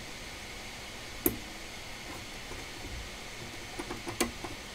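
Small clicks and rustles of foam being picked off a laptop logic board by hand, over a steady hiss. There is one sharp click about a second in and a few more near the end.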